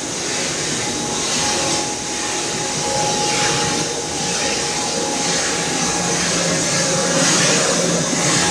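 Palm oil mill screw presses and conveyors running: a loud, continuous machine din with a steady hum and a hissing upper layer that swells and fades in a regular rhythm.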